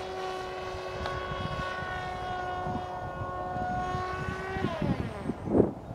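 Small electric flying wing's motor and propeller whining steadily overhead, the pitch gliding down about three-quarters of the way through, over wind rumble on the microphone, with a brief louder rush near the end.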